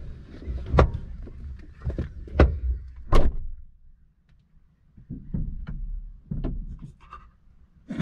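A car driver climbing out: a string of clicks and knocks from the seatbelt, door and seat, with the driver's door shut with a thud about three seconds in. Lighter knocks follow, and a sharp thud comes at the very end.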